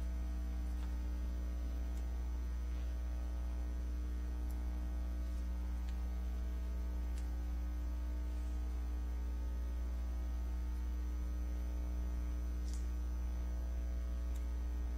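Steady electrical mains hum, a low buzz with a ladder of higher overtones, with a few faint ticks scattered through it.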